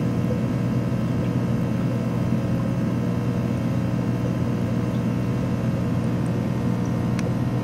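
Steady low mechanical hum that does not change, with one faint click about seven seconds in.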